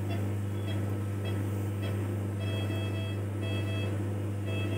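Steady low electrical hum from procedure-room equipment. In the second half, a run of short, high electronic beeps from medical equipment repeats several times.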